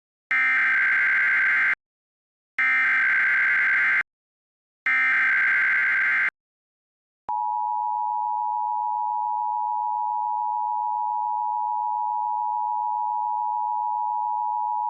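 Emergency Alert System broadcast tones, as relayed by an FM radio station. First come three identical bursts of SAME digital header data, each about a second and a half long, with short silent gaps between them. Then, after a pause of about a second, the steady EAS two-tone attention signal starts about seven seconds in; it marks the start of an alert, here a National Weather Service tornado watch.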